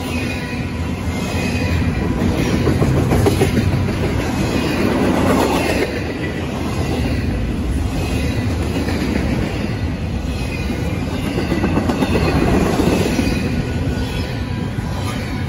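Double-stack intermodal freight cars rolling past at track side. The steel wheels clatter over the rail in swelling and fading waves, with a thin, steady high squeal over them. The sound eases off near the end as the last cars go by.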